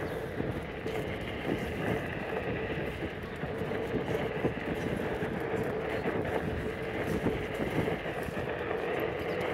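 Footsteps on a paved path, short irregular taps over a steady background hum with a constant pitch.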